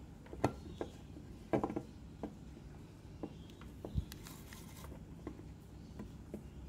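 Scattered small clicks and taps from fingers handling thin wires and a tiny circuit board pressed into soft mounting putty on a wooden bench. There is a quick cluster of ticks early on, a duller knock about four seconds in, and a brief soft hiss just after it.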